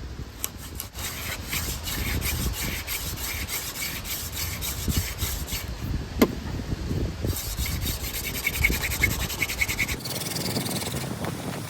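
Yucca hand-drill spindle spun back and forth between the palms, its tip grinding into the notched socket of a crepe myrtle fire board in a run of rasping strokes as it works up smoke by friction.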